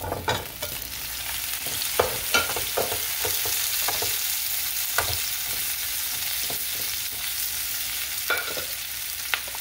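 Fried battered shrimp and garlic sizzling in hot oil in a frying pan, being stirred and turned with a slotted spatula. A steady sizzle runs throughout, with scattered clicks and scrapes of the spatula on the pan; the sharpest come about two and five seconds in.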